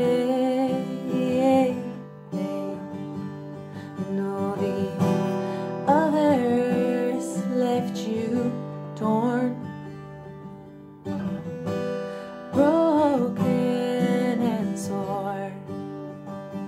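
A woman singing long held notes while playing acoustic guitar chords.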